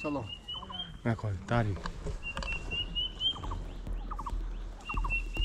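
Wild forest birds calling: one repeats a short phrase of high, stepwise rising notes about every two and a half seconds, while another gives quick groups of three short notes lower down, over and over.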